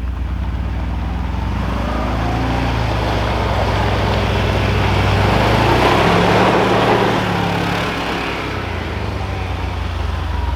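Kawasaki Mule PRO utility side-by-side driving, with its engine running steadily and a broad rumble of tyres and chassis over the ground. The sound swells a little about six seconds in, then eases off.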